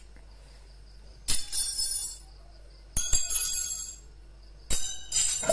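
Metallic jingling in three bursts of about a second each, roughly one and a half seconds apart, with a sharp click partway through the second burst.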